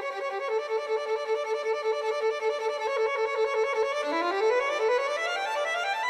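Background music led by a violin: quick repeated notes, then a fast rising run of notes near the end.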